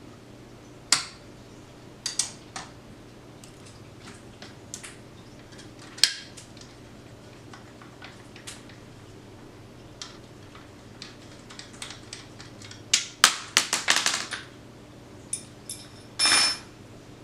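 Allen wrenches and small metal parts of a bike repair stand clicking and clinking as screws are worked loose: scattered single clicks, a quick run of clicks about thirteen seconds in, and a short scrape near the end.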